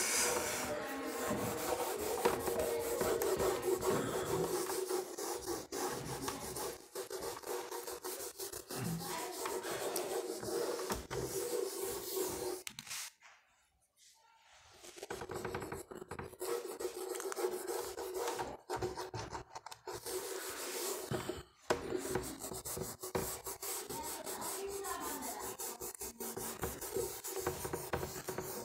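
A whiteboard duster rubbed in quick repeated strokes across a whiteboard, wiping off marker writing. The rubbing stops for about two seconds near the middle, then starts again.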